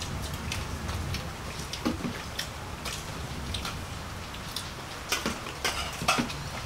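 Scattered small clicks and taps of a meal being eaten at a table: plates, bowls and a spoon being handled, over a low steady hum.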